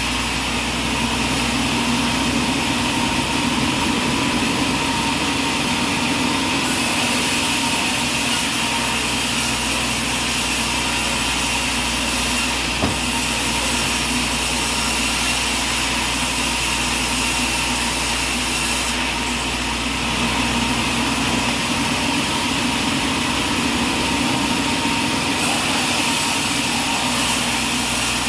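Sawmill machinery running steadily at the log, an even mechanical noise with a faint steady whine, and one sharp click about thirteen seconds in.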